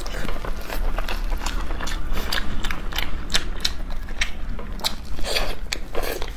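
Close-miked eating of chicken: biting and chewing, with many short, irregular crunches and wet mouth clicks, and a couple of louder bites near the end.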